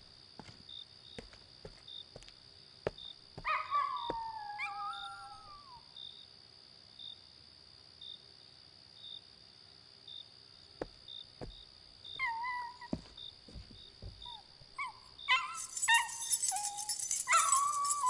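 A dog whining and howling in drawn-out calls that fall in pitch: one bout about three seconds in, another near the twelve-second mark, and a run of them in the last few seconds. Crickets chirp steadily underneath.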